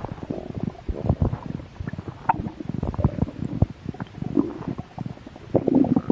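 A hungry person's stomach growling: an irregular run of quick gurgles and pops, with a few short low rumbles in between.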